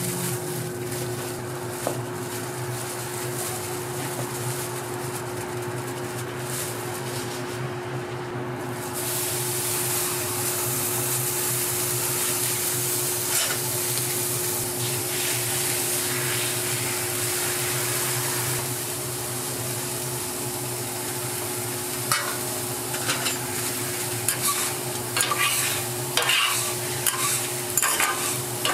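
Food frying on a flat-top griddle, a steady sizzle that gets louder about a third of the way in, with chicken strips and then beaten egg cooking on the hot plate. Near the end, a metal spatula scrapes and taps against the griddle many times. A steady low hum runs underneath.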